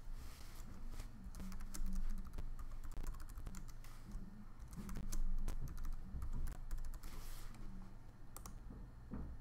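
Typing on a computer keyboard: a long run of quick keystrokes.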